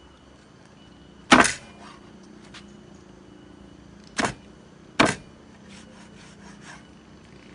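Heavy cleaver chopping through cooked chicken into a wooden cutting board: three loud, sharp chops, about a second in, near four seconds and just after five seconds, with faint knocks of the blade on the board between them.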